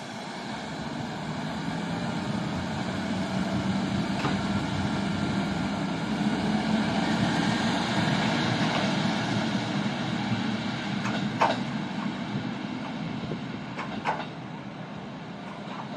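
Shimabara Railway diesel railcar pulling out of the station. Its engine drone grows louder as it gets under way, then fades as it draws off. A few sharp clicks come near the end.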